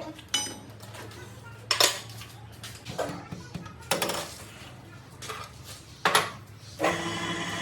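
Metal clinks and knocks, several separate strikes a second or so apart, like steel tools or parts being handled and set down. Near the end a steady hum with several fixed tones starts up.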